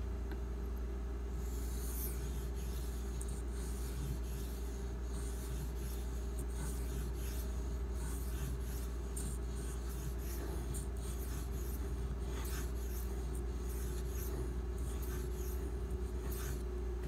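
A 1095 carbon-steel pocketknife blade being stroked across a 1000-grit Shapton Glass sharpening stone: repeated short, gritty scraping strokes, starting about a second and a half in, over a steady low hum.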